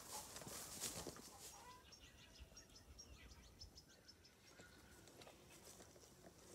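Near silence outdoors, with faint bird chirps.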